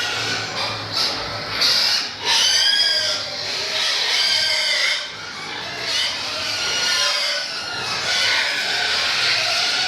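Pigs squealing, many overlapping high-pitched calls at once.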